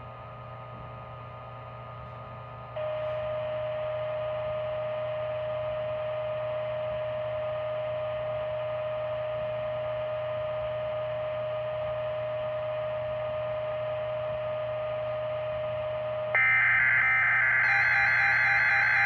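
NOAA Weather Radio audio: low hum and static, then about three seconds in a steady mid-pitched tone over louder hiss switches on and holds. About sixteen seconds in, a loud rapid digital data burst starts: the Emergency Alert System SAME header that opens a Required Weekly Test.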